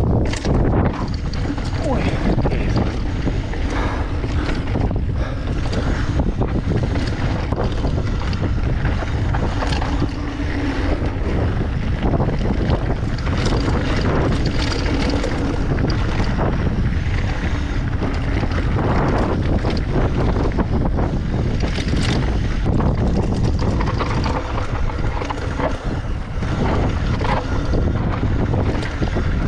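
Loud, steady wind buffeting the microphone, a rushing roar that fluctuates but never lets up.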